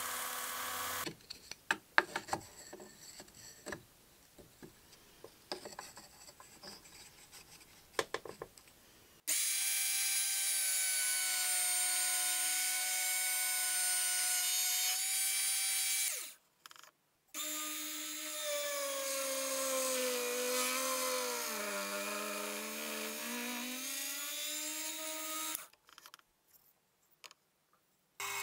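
A small drill press motor runs at a steady high pitch, stops, then starts again. In the second run the pitch sags for a few seconds as the twist bit bites into a wooden piece clamped in a jig, then recovers before the motor cuts off. Before this, a belt sander runs briefly at the very start, followed by several seconds of light clicks and scrapes.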